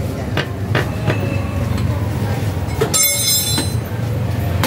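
Steady low rumble with a few light metal clicks, and a brief high metallic squeal about three seconds in.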